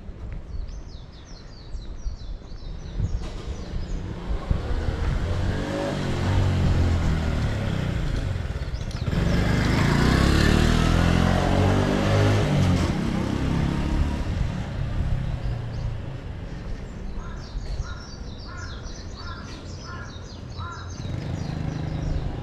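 A road vehicle passes close by. Its sound builds to a peak about ten seconds in and then fades away, and birds call repeatedly before and after it.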